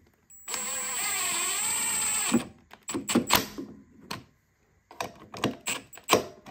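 Milwaukee cordless driver running for about two seconds as it drives a bolt into the lawnmower's plastic air filter housing, followed by a series of sharp clicks and knocks.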